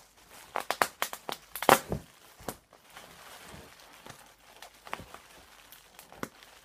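Plastic bubble wrap being crinkled and pulled off a bottle, with a quick run of sharp crackles in the first two seconds, then quieter rustling and a few scattered crackles.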